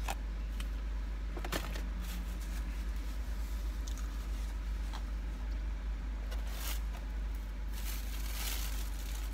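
Quiet eating in a car cabin: soft chewing with a few faint clicks and rustles of food and paper wrappers, over a steady low hum.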